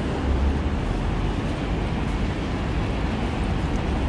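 Steady low rumble and rushing noise of a moving vehicle, with no distinct events.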